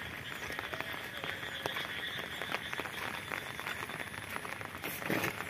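Light rain falling steadily, a soft patter with many scattered drop ticks, mixed with footsteps on a wet gravel and brick path.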